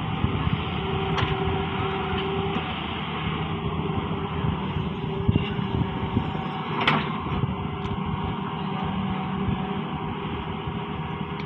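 An engine running steadily, with a few sharp knocks over it, the loudest about seven seconds in.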